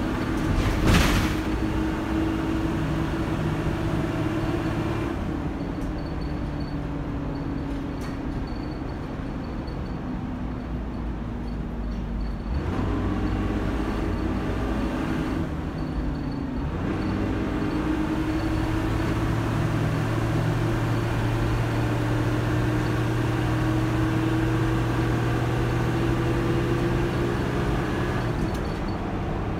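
Dennis Dart SLF single-deck bus heard from inside the saloon, its diesel engine and Allison AT545 automatic gearbox pulling hard. The engine note climbs and drops back twice as it changes gear. There is a brief sharp knock about a second in.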